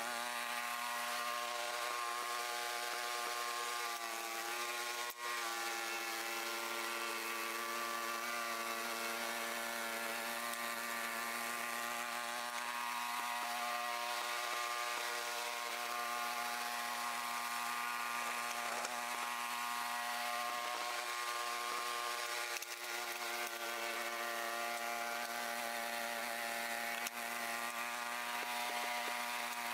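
Small gasoline engine of a snowblower running steadily at constant speed.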